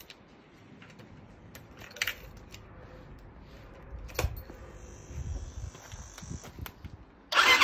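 Phone handling: faint rustling with a few sharp clicks. Near the end, the Suzuki DR125SM's single-cylinder four-stroke engine suddenly starts running loudly through its Black Widow aftermarket exhaust.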